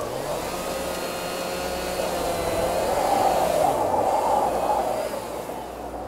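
Chainsaw running up to speed and cutting, loudest around three to four seconds in, then easing off near the end.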